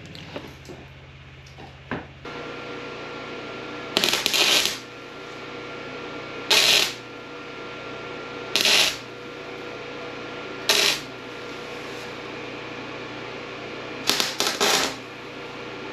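Arc welder laying tack welds on square steel tubing: five short crackling bursts of the arc, each under a second, a couple of seconds apart, the last one breaking up into several sputters. A steady machine hum runs underneath.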